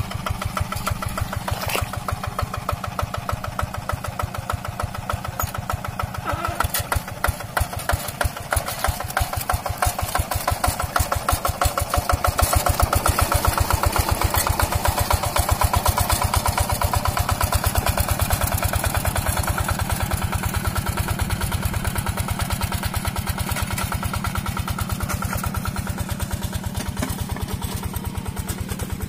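Yanmar TF 65 single-cylinder diesel engine of a two-wheel hand tractor running steadily under load in paddy mud, with a rapid, even chugging beat. It grows louder about twelve seconds in and eases off toward the end.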